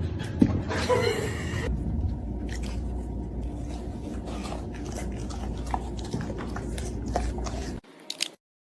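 A dog chewing food, with a quick run of crisp crunching clicks; it cuts off suddenly near the end.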